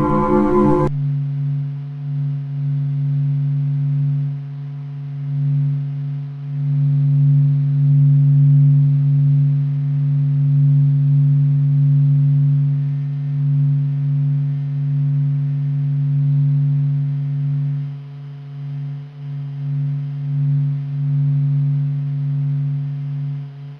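Space radio emissions turned into sound: a steady low drone with faint higher overtones, slowly swelling and fading in loudness. A richer, many-toned sound cuts off about a second in.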